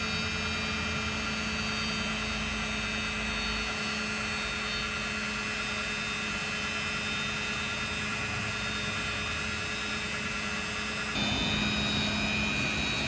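Electric power tool on a jig running steadily with a high motor whine, machining the rim of a wooden windmill brake wheel as the wheel turns slowly past it. It gets slightly louder about eleven seconds in.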